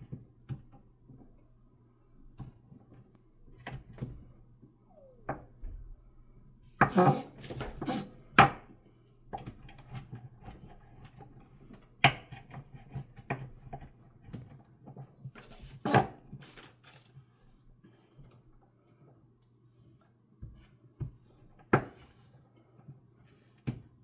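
Irregular knocks and clatter of kitchen utensils and dishes on a countertop during food preparation, a cluster of sharper clacks several seconds in and single ones later, over a steady low hum.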